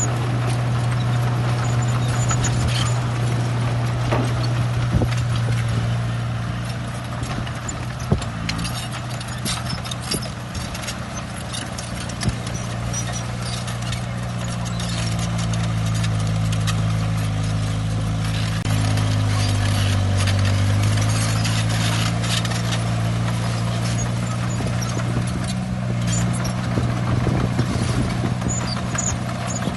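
Komatsu crawler bulldozer's diesel engine running under load, with its steel tracks clattering and occasional sharp metal clanks. The engine note sags about two-thirds of the way through, then recovers.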